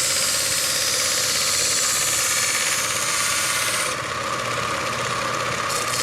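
Slow-running belt grinder of an antique meat-packing knife sharpening machine, running steadily with a knife edge being ground on it; a dense grinding hiss whose high end dips for about two seconds near the end, then returns.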